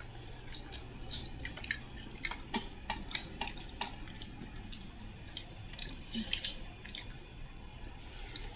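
Scattered light clicks and clinks of stainless-steel plates and bowls being handled and touched while eating, irregular and a few per second, over a faint steady low hum.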